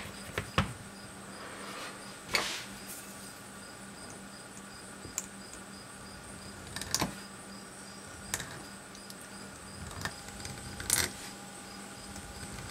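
A hobby knife blade scoring lines into a small clear disc on a cutting mat: sparse, faint clicks and scrapes a second or two apart, over a low steady hum.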